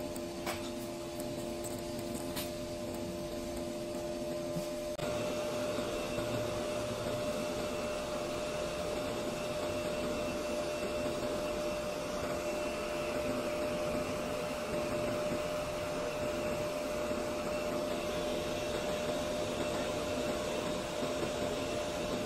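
Hot air rework gun blowing steadily, with a steady whine underneath; the airflow gets louder about five seconds in and stays up. It is heating a surface-mount part to solder it onto a circuit board.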